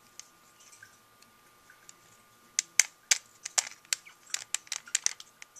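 Plastic Rubik's Cube clicking and rattling in the hands as it is turned. A few faint clicks at first, then a rapid, irregular run of sharp clicks from about halfway.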